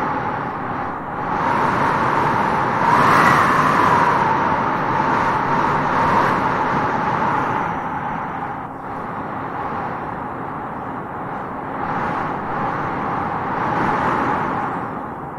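Wind blowing in gusts through grass: a steady rush that swells and eases several times, with a whistling tone that climbs as the strongest gust builds about three seconds in.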